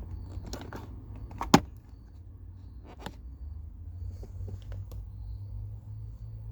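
Plastic clicks and one sharp snap about a second and a half in, then a few lighter clicks, as a plastic interior cover in the car is popped open to reach the cabin air filter. A low steady hum sits underneath.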